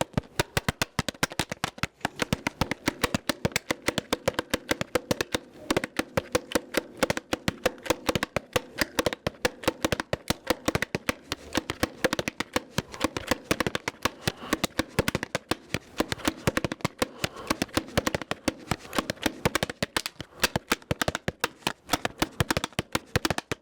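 Small plastic bottle played by hand as a percussion effect: a fast, continuous run of sharp clicks and crackles.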